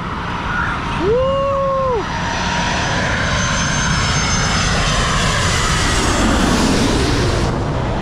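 Twin-engine jet airliner flying low overhead on its landing approach. Its engine noise builds into a loud roar with a high whine, then eases slightly near the end.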